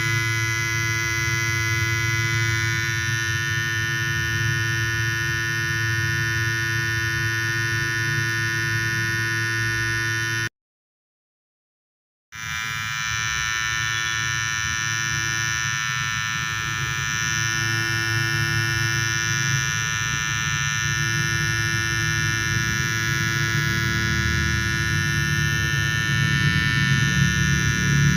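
Electric hair trimmer (detailer) running with a steady buzzing hum. It cuts out completely for about two seconds midway, then resumes.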